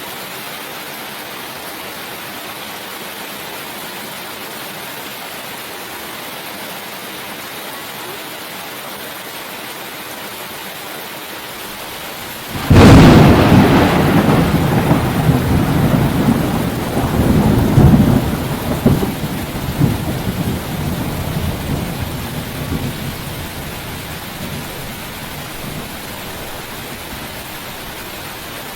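Steady rain with a single loud thunderclap about halfway through: a sharp crack, then a rolling rumble that swells again several times and dies away over about ten seconds.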